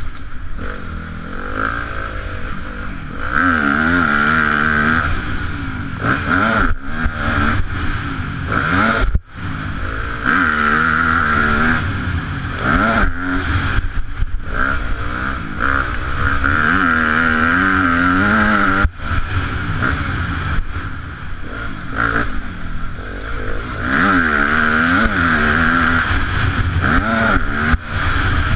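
Yamaha YZ250F single-cylinder four-stroke motocross bike riding a track, its engine pitch climbing and falling again and again as the throttle opens and closes and the gears change. The sound cuts out briefly twice, about nine and nineteen seconds in.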